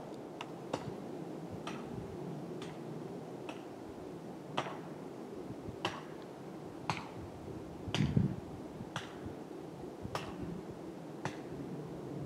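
Steady background noise broken by a dozen or so sharp clicks at irregular intervals, roughly one a second, with a duller knock about eight seconds in.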